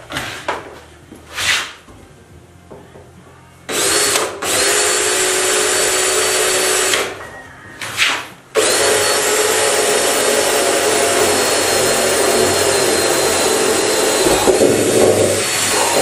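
Handheld power drill boring through the wall of a plastic barrel, running steadily at a held pitch for about three seconds, stopping, then running again for about seven seconds. A couple of short knocks come before it starts.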